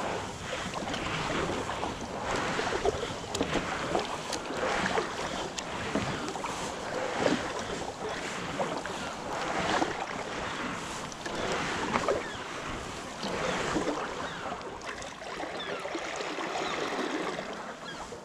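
Double-bladed kayak paddle dipping into and pulling through calm sea water, a splash and trickle of dripping water with each stroke, coming every second or so.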